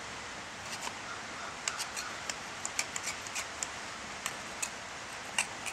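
Metal hoof pick scraping and clicking against a horse's hoof around the frog: a string of short, irregular scrapes and ticks as packed dirt is picked out.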